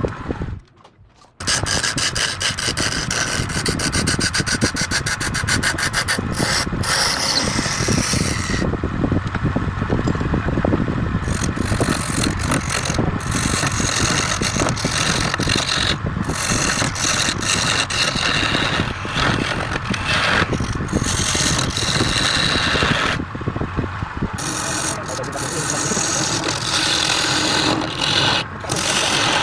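Wood lathe spinning a wooden workpiece while a tool or abrasive scrapes and rubs against it: a dense, steady scraping. It drops out briefly about a second in and changes abruptly a few times.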